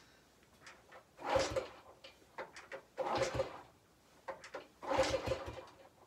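Honda CT90's single-cylinder four-stroke engine kick-started three times, about two seconds apart: each kick clatters and turns the engine over briefly, but it does not catch. The tank holds barely any fuel, which the owner doubts is enough to fill the carburettor bowl.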